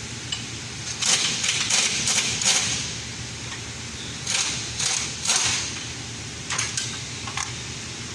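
Hand tools and metal parts clattering and knocking during under-car repair work, in three short groups of sharp clinks over a steady low hum.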